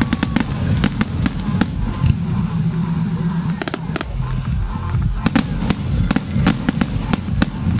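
Aerial fireworks going off: sharp bangs and crackles in clusters, thickest in the last few seconds, over a steady low rumble.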